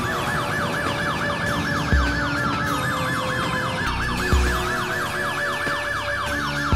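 Music track with a siren effect: a fast yelping siren, about five sweeps a second, over a slower falling wail, with heavy bass hits about every two and a half seconds.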